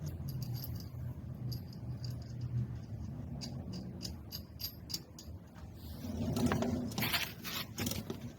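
Small metal parts being handled: a run of light clicks and rattles, then louder rustling and clinks near the end.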